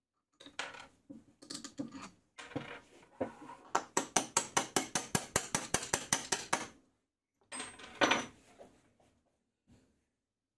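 Hammer tapping quickly and evenly, about five light strikes a second for some three seconds, on a steel bolt through a stack of plywood discs. Rubbing and knocking of the wooden parts comes before it, and a single louder knock about eight seconds in.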